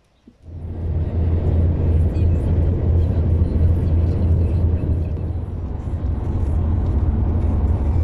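Steady low road-and-wind rumble inside a car travelling at motorway speed, starting abruptly about half a second in.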